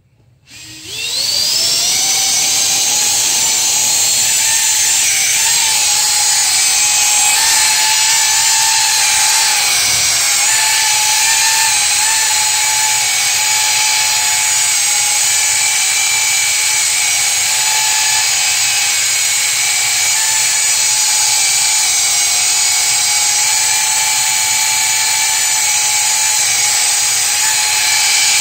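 Electric ducted fan spinning up with a rising whine over about the first second, then holding a loud, steady whine with slight wobbles in pitch as it lifts a small test craft.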